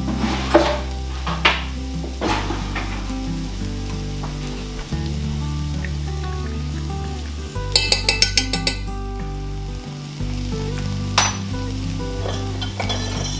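Chopped onion and minced garlic sizzling in hot olive oil in an enameled cast-iron skillet. A utensil clicks against the pan a few times early on, then gives a quick run of about eight taps near the middle. Low background music plays underneath.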